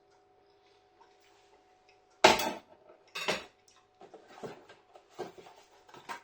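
Cutlery knocking and scraping in a microwave-meal tray as curry and rice are scooped up: a sharp knock about two seconds in, another about a second later, then a run of lighter clicks and scrapes.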